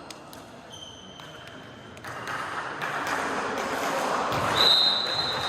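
Indoor volleyball play: sharp ball hits and short high squeaks, then crowd noise swells about two seconds in and stays up, with a high held squeak near the end.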